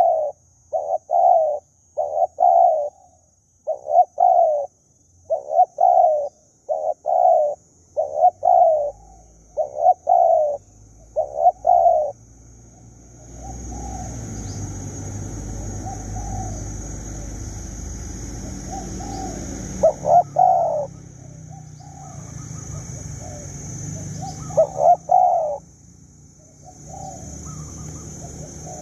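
Spotted doves cooing: short coo phrases repeated about once a second for the first twelve seconds. After that the coos are fainter, with a few louder ones, under a low steady rumbling noise that starts about thirteen seconds in. A steady high-pitched whine runs throughout.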